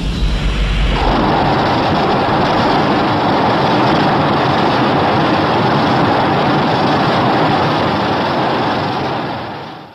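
Spiral ray sound effect, a sci-fi energy-beam firing: it opens with a deep low rumble in the first second, then runs as a dense, steady rushing hiss that fades out near the end.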